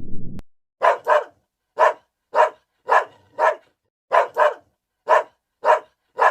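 A dog barking repeatedly: about a dozen short, sharp barks, some in quick pairs, roughly two a second. A low rumble cuts off abruptly just before the barking starts.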